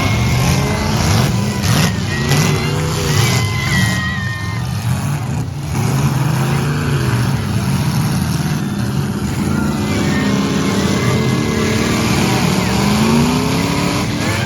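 Demolition derby car engines running and revving, their pitch repeatedly rising and falling, with a few sharp knocks.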